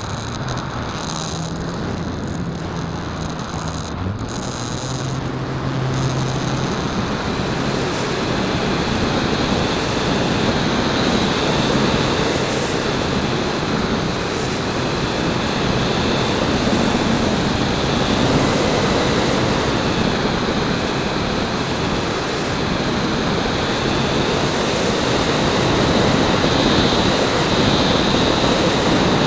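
Onboard sound of an RC aerobatic airplane in flight: a steady rush of wind over the tail-mounted camera's microphone, with the motor and propeller running underneath and a faint high whine that swells and fades as the plane manoeuvres.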